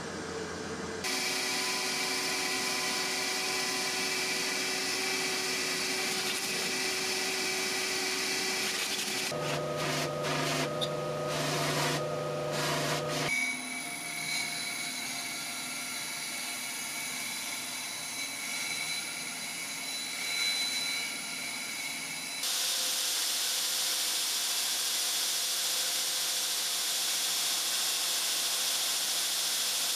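Shop power tools running in a series of abrupt cuts, each a steady machine sound. From about three-quarters of the way through, a belt grinder grinds the steel chopper blade with a steady hiss.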